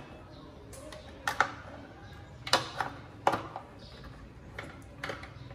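Plastic bulb sockets and wiring of a car tail light being handled and fitted, with about half a dozen sharp plastic clicks and rattles spread through.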